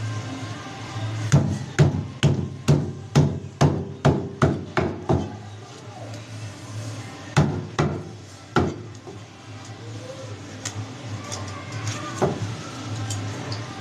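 Cleaver scaling a grouper on a wooden chopping block: a quick run of about ten sharp knocks, two a second, then a few more spaced out, over a steady low hum.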